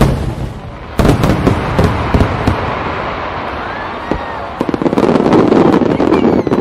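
Aerial fireworks shells bursting: a sharp bang at the start and another about a second in, followed by a dense run of crackles and pops over a sustained rumble that grows louder near the end.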